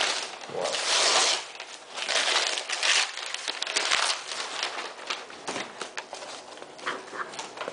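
Brown kraft paper wrapping being torn open and crumpled by hand, in irregular rustling bursts, the strongest about a second in and again near three seconds.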